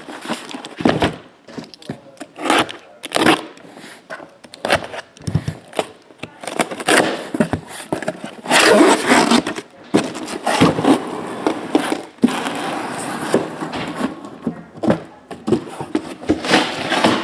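Cardboard shipping case being opened by hand and shrink-wrapped card boxes slid out of it: a run of irregular cardboard scraping and rustling with short knocks, loudest about eight to ten seconds in.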